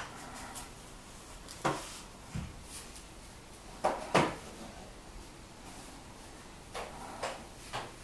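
A scattered series of short, sharp knocks and clicks, about half a dozen, the loudest pair about four seconds in, over a faint steady background.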